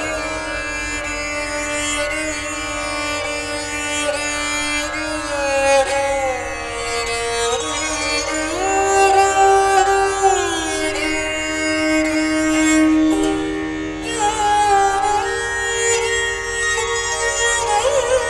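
Dilruba bowed in a slow melody: long held notes with smooth slides from one pitch to the next, over a steady drone.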